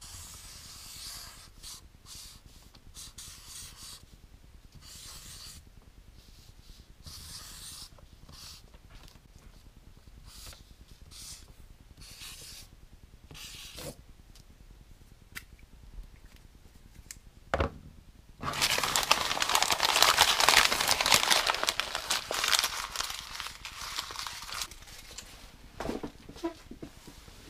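Marker pen scratching across paper in short strokes as letters are written. About eighteen seconds in comes a knock, then some six seconds of loud rustling and crumpling, like paper or a plastic bag being handled, followed by a few scattered knocks.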